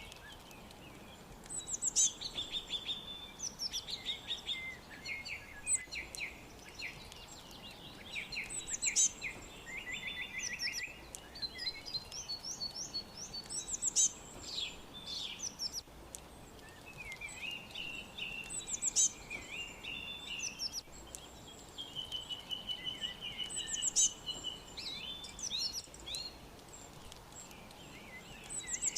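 Several small songbirds chirping and singing at once, with overlapping trills and twitters. A loud, sharp high call stands out every few seconds, over a faint steady background hiss.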